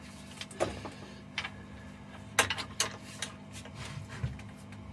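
Adjustable torque wrench and socket on the cylinder-head nuts of a Russell Newbery diesel: several sharp metallic clicks and clinks, spaced irregularly, as the wrench set to 110 is fitted to each nut and pulled to check its torque.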